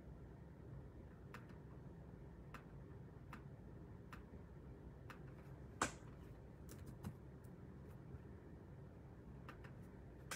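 Near silence: a low steady room hum with scattered faint clicks, one sharper click about six seconds in.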